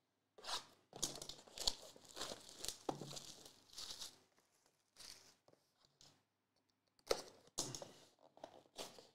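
Plastic shrink-wrap being torn and crinkled off a sealed product box in a run of short, irregular bursts, with a few brief pauses and a second flurry near the end.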